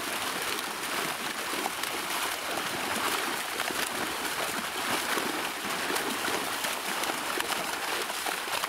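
Water splashing and churning as a mass of large fish thrash inside a net that men are closing in shallow pond water: a continuous wash of splashing with many quick slaps of fish hitting the surface.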